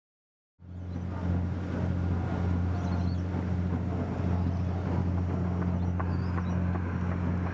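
Steady low engine drone of a boat, cutting in suddenly about half a second in, with faint scattered clicks over it.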